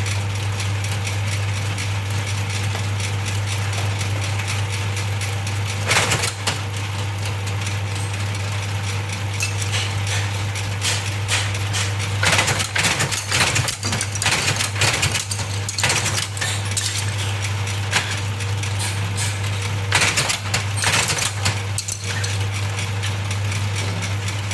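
A 3-in-1 bamboo satay-skewer splitting and shaving machine with eight rollers running: a steady motor hum, with bursts of rattling and clattering about 6 seconds in and again from about 12 to 16 and 20 to 21 seconds in as pieces go through the rollers.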